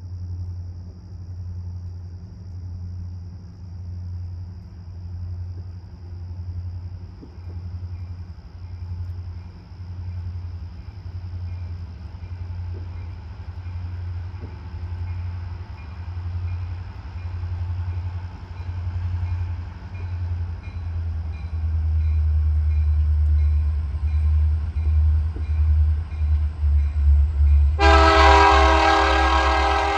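Canadian National diesel locomotives approaching: a low engine rumble throbbing about once a second, growing louder about two-thirds of the way through. Near the end the lead locomotive's air horn sounds a loud, sustained chord.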